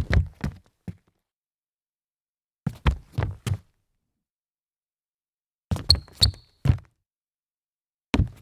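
Sneakers stumbling forward on a wooden floor: quick clusters of three or four heavy footfalls, heard four times about three seconds apart with silence between. The third stumble has two short, high rubber squeaks from the soles.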